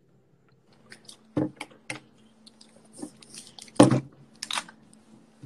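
A person drinking from a drink bottle close to a phone's microphone: scattered sips, mouth and swallowing sounds and small handling clicks over a faint steady hum, with a louder knock about four seconds in.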